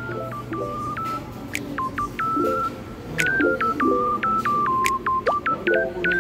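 Instrumental background music: a melody of short, high, bell-like synth notes over soft lower chords, in the manner of a lo-fi track.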